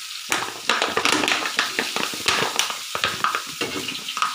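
Masala-coated fish pieces frying in hot oil with raw rice in a pan. A steady sizzle runs under a quick irregular run of scrapes and knocks as a utensil turns the pieces against the pan, starting about a third of a second in.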